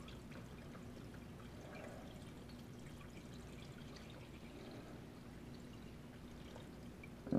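Chicken bone broth poured slowly through a fine-mesh strainer into a bowl: a faint, steady trickle of liquid.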